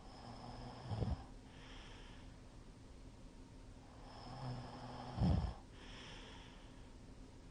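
A middle-aged man snoring heavily in his sleep: two breaths about four seconds apart, each drawing in to a short, loud rattling snore and then letting out a softer hissing exhale. He puts the very loud snoring down to having drunk too much.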